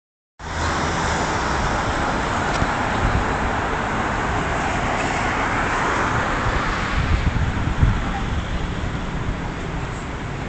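Steady road traffic noise: vehicles driving past, a constant hum of engines and tyres with no siren yet sounding.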